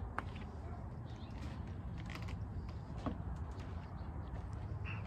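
Quiet outdoor ambience: a steady low rumble with scattered faint clicks, and a short high chirp or two near the end.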